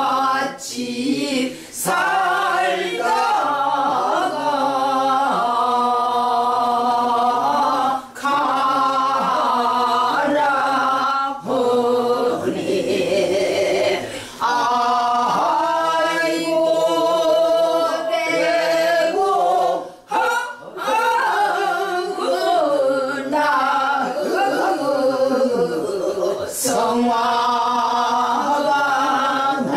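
Several women's voices singing a Korean traditional folk song together without accompaniment. Held notes carry a wide, wavering vibrato, with short breaks between phrases.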